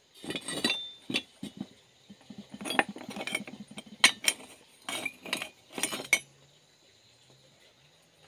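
Metal pipe and tube offcuts clinking and knocking together as they are rummaged through and picked up by hand, a run of irregular sharp knocks with a few louder ones; the handling stops about six seconds in.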